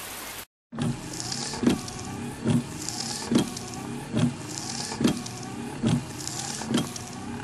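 A steady rhythmic beat that starts after a short dropout about half a second in: a low thump a little more than once a second, with a high hiss on every second thump, over a steady low hum.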